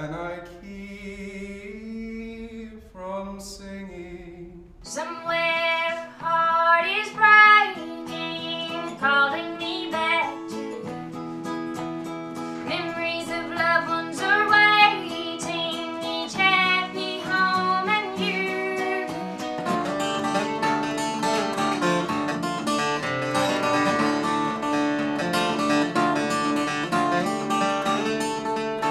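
Folk music recorded live: a brief stretch of singing, then a woman singing with acoustic guitar accompaniment from about five seconds in, and from about twenty seconds in an acoustic guitar played solo, picked and strummed.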